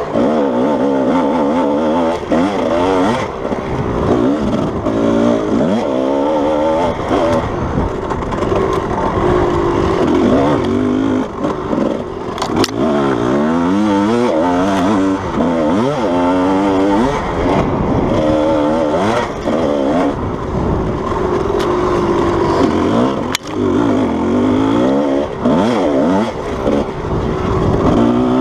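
Kawasaki KDX220 two-stroke dirt bike engine ridden hard on a trail, its pitch rising and falling every second or so as the throttle is worked and the gears are changed. A couple of sharp knocks come through, one a little before halfway and one near the end.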